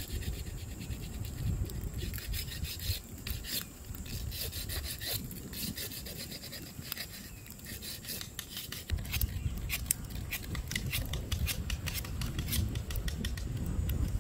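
Rapid, repeated rasping scrapes over a low rumble, the scraping busiest in the second half.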